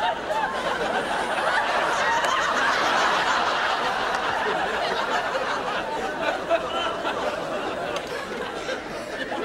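Studio audience laughing: many people chuckling and giggling together, swelling a couple of seconds in and slowly tapering off.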